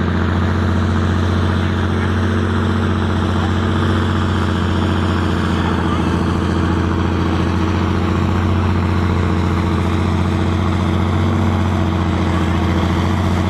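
John Deere 7000-series tractor's six-cylinder diesel engine running steadily under heavy load, pulling a weight-transfer sledge at an even pace.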